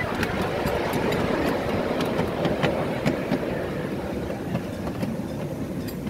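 Miniature live-steam locomotive running along its track, heard from the tender: a steady rumble of wheels on rail with scattered sharp clicks over the rail joints.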